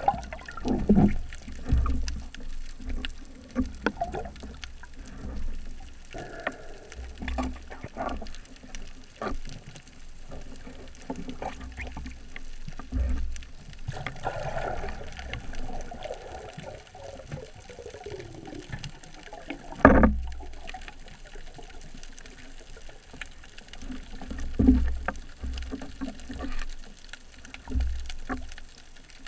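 Underwater sound of a spearfisher swimming and handling a speargun: water rushing past the housing, small knocks and swishes against the gun, and scattered low thumps. One loud, sharp thud about two-thirds of the way in.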